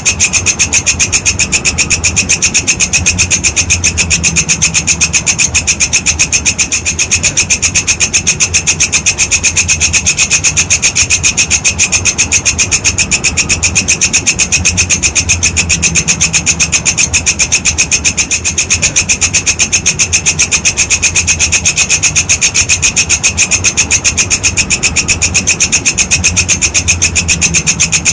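Walang kecek grasshopper stridulating: a continuous, fast, evenly pulsed dry rasping chirp, high-pitched, with a faint low hum underneath.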